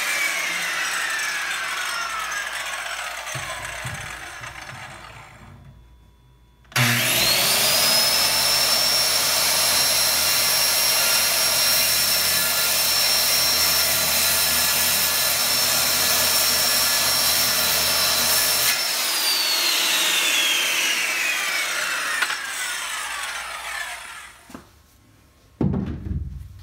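Corded circular saw cutting into a plywood seat. It winds down with a falling pitch at the start, is started again a few seconds later and runs at a steady high whine for about twelve seconds, then spins down slowly with a falling pitch. A short burst of noise comes near the end.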